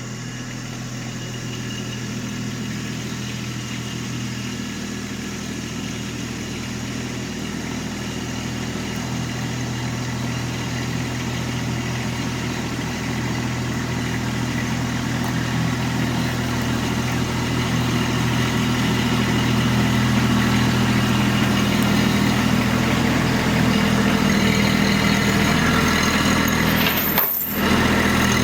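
Farm tractor engine running steadily, growing louder as it is driven up close. The sound drops out briefly near the end.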